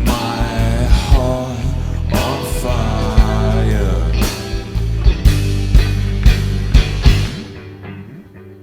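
Live rock band of guitars, bass guitar and drums playing the closing bars of a song. A run of accented hits comes about every half second, then the band stops about seven seconds in and the last chord rings away.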